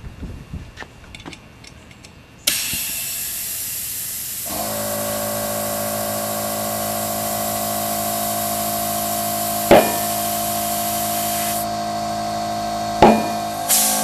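Compressed air hissing into a motorcycle rear tire through its open, coreless valve stem, with a small electric air compressor starting up and running steadily. Two sharp pops come a few seconds apart as the lubed tire bead snaps onto the rim and seats.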